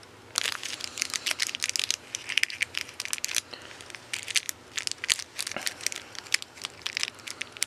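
Plastic Laffy Taffy candy packaging crinkling and crackling as it is handled and torn open, in irregular clusters with brief pauses.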